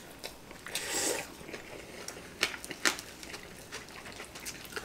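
Quiet eating sounds: a few light clicks of metal chopsticks against a plate, with soft chewing in between.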